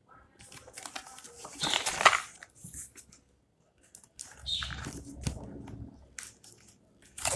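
Corrugated cardboard packaging being torn open by hand, with a loud rip about two seconds in, then more tearing and rustling of the cardboard.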